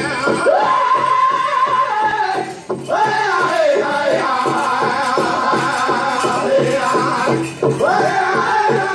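Powwow drum group singing in high voices over a steady drumbeat. There are two short breaks between phrases, about two and a half and seven and a half seconds in.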